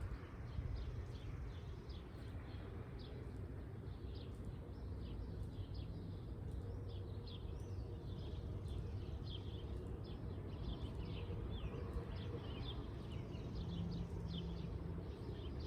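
Songbirds chirping, many short rapid calls over and over, over a steady low rumble.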